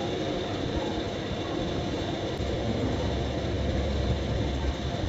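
Steady rumbling background noise, with a deeper low rumble coming in about halfway through.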